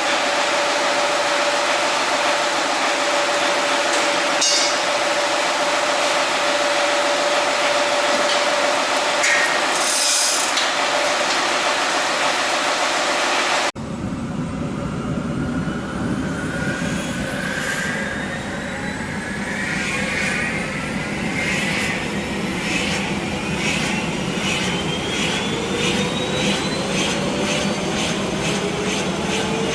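MTZ-82 tractor running with its freshly greased haulm topper driven off the power take-off, a steady mechanical hiss with a held whine. About halfway through the sound cuts to the rotor spinning up: several whines rising in pitch over a regular beating rhythm.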